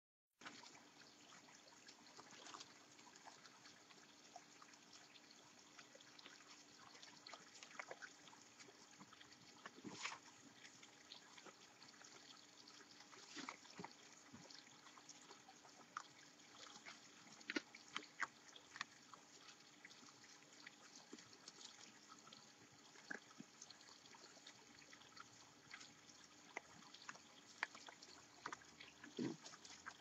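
A group of raccoons feeding from a bowl on a wooden fence shelf: faint, scattered small clicks, crunches and scrapes of eating and of claws shifting on the wood, with a few sharper clicks.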